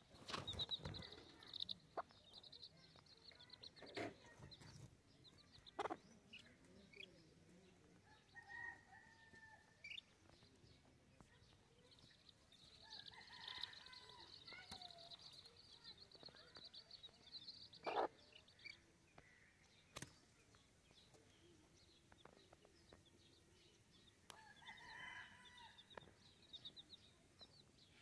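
Young chicks peeping faintly in short high runs, with a mother hen's occasional low clucks. A few sharp knocks come through, the loudest about 18 seconds in.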